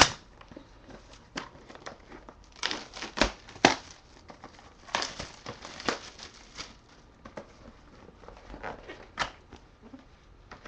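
Plastic shrink-wrap being torn off a trading-card hobby box and crumpled in the hand: irregular crinkling and crackling, the loudest bursts about three seconds in and again around five to six seconds.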